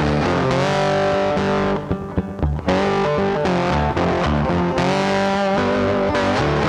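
Background music: electric guitar with distortion over a bass line, with a brief break about two seconds in.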